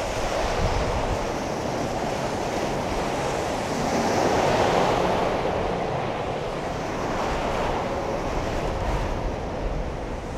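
Steady rush of road traffic with wind buffeting the microphone, swelling a little around the middle as a car passes.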